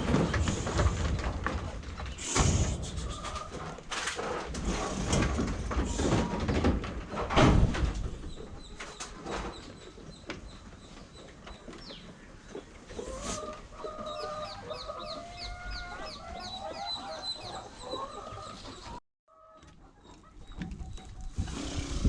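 Chickens clucking and calling, with heavy bumps and rumbles in the first half. The sound drops out briefly near the end.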